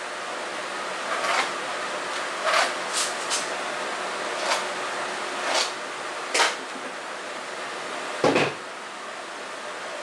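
Bolts being taken off a plywood table-saw sled and the wooden 45-degree jig pieces handled: a scattered series of light clicks and knocks, then one heavier wooden knock a little past eight seconds, over a steady room hiss.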